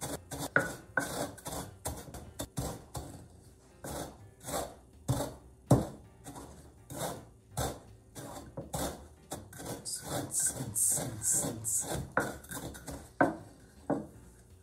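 Wooden pestle pounding and grinding Rice Krispies in a wooden mortar, crushing the cereal to a powder: irregular knocks and scraping grinds, busier in the second half.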